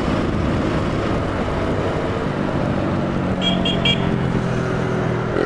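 Yamaha XT 600 single-cylinder motorcycle engine running steadily under way, with road and wind noise on a helmet-mounted camera. About three and a half seconds in, a horn gives three quick high beeps.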